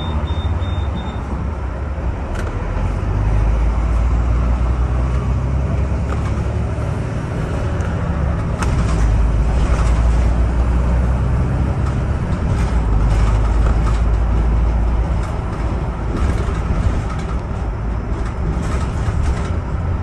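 Double-decker bus engine and drivetrain running under way, heard from the upper deck. A low rumble grows louder about 3 seconds in and again from about 9 to 15 seconds, with light rattles from the body. A short run of high beeps sounds in the first second.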